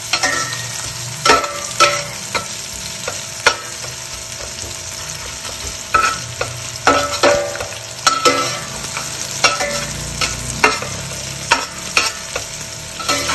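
Sliced onions frying in oil in a stainless steel pot, giving a steady sizzle, while a metal spatula stirs them with irregular scrapes and clinks against the pot that ring briefly. The onions are being lightly fried with whole garam masala, not yet browned.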